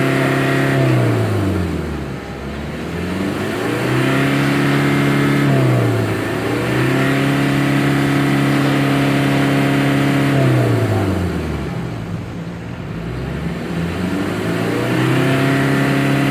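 Mitsubishi L300's diesel engine revved up and held at high revs for several seconds at a time, falling back toward idle twice and climbing again each time.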